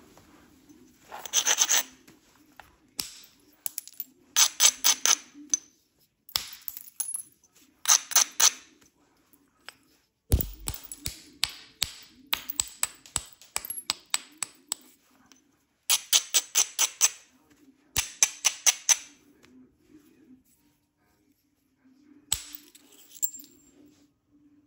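Flint knapping: a knapping tool working the edge of a heat-treated Flint River chert biface, trimming it down in short runs of rapid light clicks, each about a second long and coming every one to two seconds. One duller, heavier knock comes about ten seconds in.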